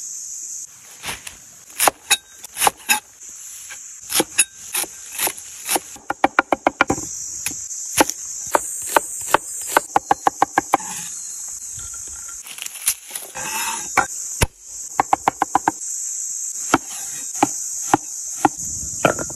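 Cleaver-style knife chopping on a wooden cutting board: single heavy chops through raw chicken, then quick runs of about five or six chops a second as onion is minced. A steady high-pitched insect buzz runs behind.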